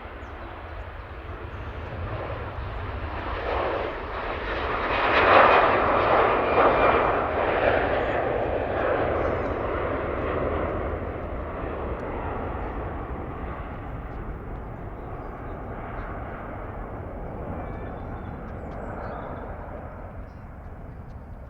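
Jet airliner engines passing: the noise builds to its loudest about five seconds in, then fades slowly.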